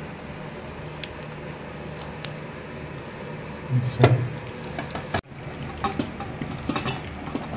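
Gloved hand mixing raw chicken pieces into tandoori masala paste in a steel bowl: wet mixing sounds with a few sharp metallic clinks, over a low steady hum. The sound cuts out for a moment about five seconds in.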